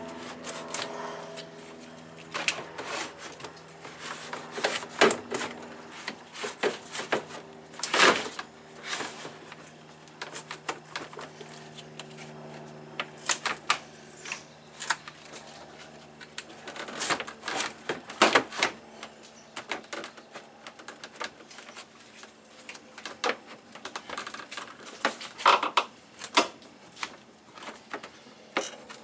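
Plastic cooling fan and shroud assembly knocking and scraping as it is worked down into place by hand, with irregular sharp clicks and clacks, a few of them loud.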